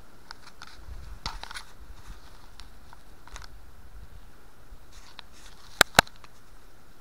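Light, scattered crackling and crunching of dry twigs and leaves, with two sharp snaps close together near the end.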